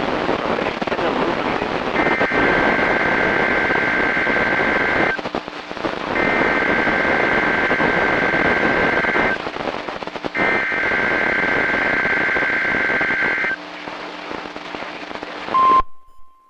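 A weather radio hissing with static while the NOAA Weather Radio SAME data header sounds three times: warbling two-tone data bursts of about three seconds each, a second apart. Near the end the static drops out and the loud, steady 1050 Hz warning alarm tone begins, marking the start of the weekly warning-alarm test.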